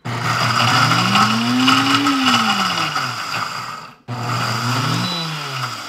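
Countertop blender pulsing, grinding dry pork rinds into crumbs. It runs for about four seconds with its motor pitch rising and then falling, stops briefly, then pulses again.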